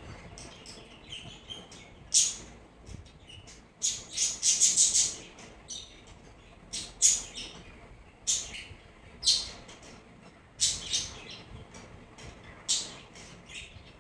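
Small birds chirping: short, high-pitched chirps at irregular intervals, with a quick run of several about four to five seconds in.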